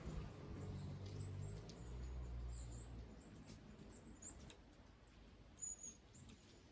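Small wild birds giving short, high chirps every second or so, faintly, over a low hum that fades out about halfway through.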